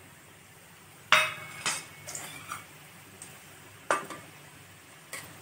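Stainless-steel plate knocking and clinking against the rim of a kadai of hot oil as murukku is slid off it for frying: a handful of sharp metallic knocks, the loudest about a second in and another just before the fourth second.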